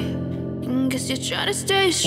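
Background pop song: a voice singing a melody over steady sustained accompaniment.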